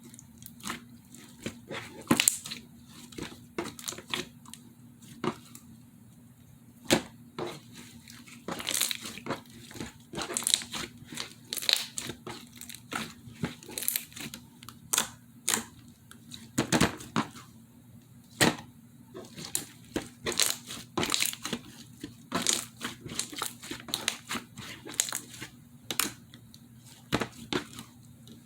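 Slime being squeezed, stretched and poked by hand, giving irregular sharp crackles and pops, several a second at times, with quieter sticky squishing in between.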